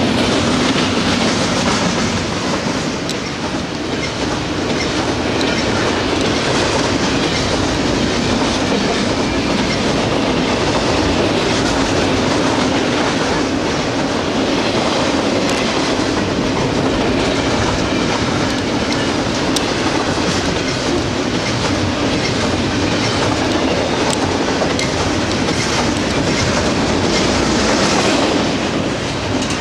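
Double-stack container freight cars rolling past close by: a steady noise of steel wheels on rail, with a few sharp clicks from the wheels.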